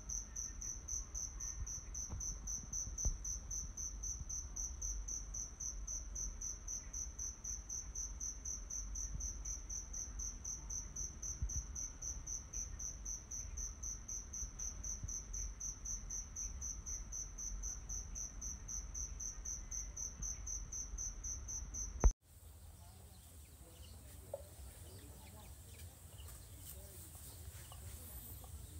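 Insects trilling steadily outdoors: a high, rapidly pulsing drone over a low rumble. Both cut off abruptly about three-quarters of the way through, leaving faint outdoor ambience.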